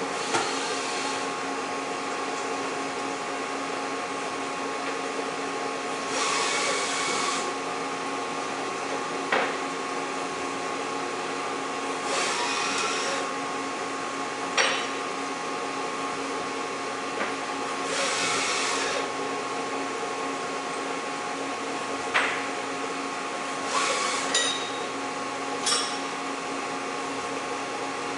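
1992 Haas VF2 CNC vertical machining center running: a steady mechanical hum with a constant whine. Roughly every six seconds comes a hiss lasting about a second and a half, and a few sharp clicks or knocks stand out.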